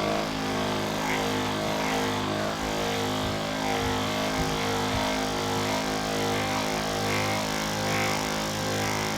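Electric handheld massager running against the lower back: a steady motor hum that swells slightly about once a second.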